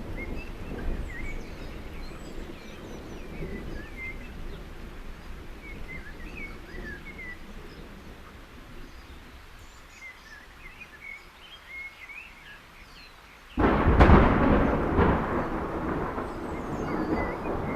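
Thunder: a low rumble that slowly dies away, then a sudden loud thunderclap about fourteen seconds in, rumbling on after it.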